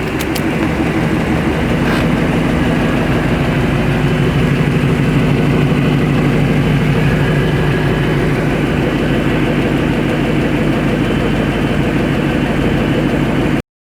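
2017 Shelby GT350's 5.2-litre flat-plane-crank V8 running steadily through a catless stock exhaust on E85, swelling a little in the first two seconds and then holding steady. It cuts off abruptly near the end.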